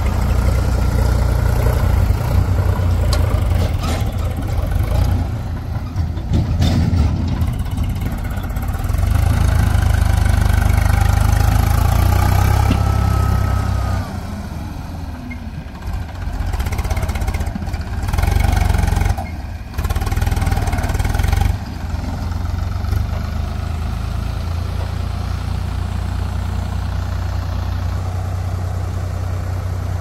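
Diesel engines of a JCB 3DX backhoe loader and tractors running, the engine sound swelling and easing as they work. A few knocks come about a third of the way in, and a short rising whine comes before the middle.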